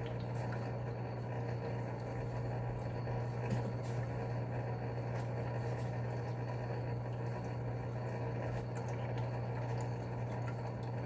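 Steady low hum and bubbling of running aquarium filtration, with a few faint light ticks of plastic fish bags being handled.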